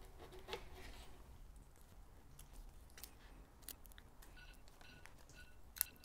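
Faint small clicks and ticks of a steel inner brake cable and fittings being handled at a road bike's rim-brake caliper, with a few faint short squeaks and one sharp click near the end.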